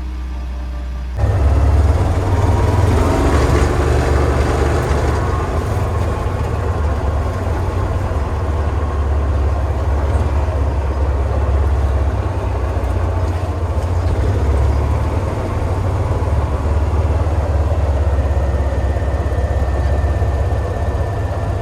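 Farm vehicle engine running steadily with a loud low rumble, starting abruptly about a second in.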